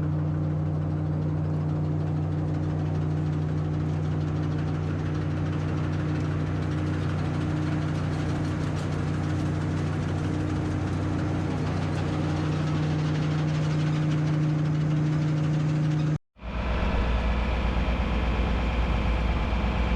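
Farm machinery engine running steadily at an even hum. About sixteen seconds in, the sound cuts off abruptly and gives way to a deeper, slightly louder engine running.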